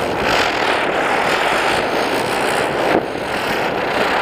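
Ground spinner firework (chakri) whirling fast on the ground with a steady, loud rushing hiss as it throws sparks, dipping briefly about three seconds in.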